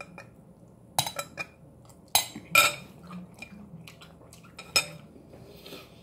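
An eating utensil clinking and scraping against a bowl: a few sharp clinks about a second in, the loudest pair just past two seconds, and one more near the end, as the last of the vegetables is scooped out.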